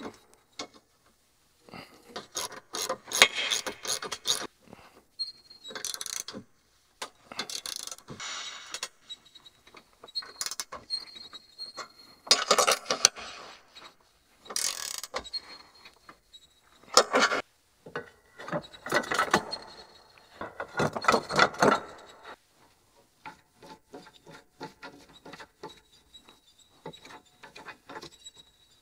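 Hand socket ratchet clicking in repeated bursts, with short pauses between them, as bolts are run down on a steel mounting bracket.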